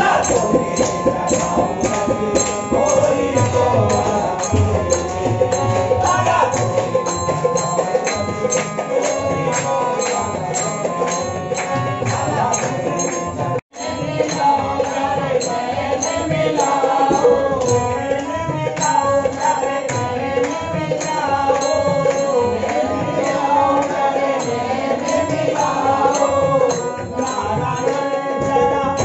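Devotional group singing (a kirtan) with harmonium, over a steady beat of clapping and small hand-percussion strokes. The sound drops out for an instant about halfway through.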